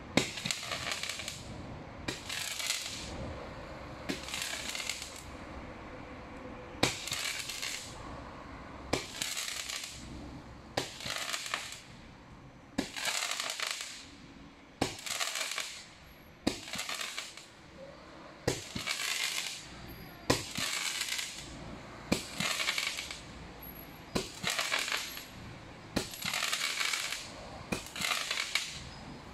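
A 30-ball crackling Roman candle firing shot after shot: each ball goes off with a sharp pop, followed by about a second of crackling as it bursts. Shots come about every one and a half to two seconds.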